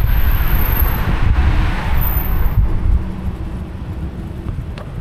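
Wind buffeting the microphone on a moving e-bike, with two cars passing the other way. Their tyre and engine noise swells and then fades away about three seconds in.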